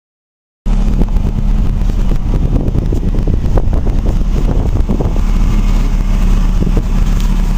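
GAZelle van running, a steady low engine drone with frequent short knocks and rattles over it. It starts after a brief silence.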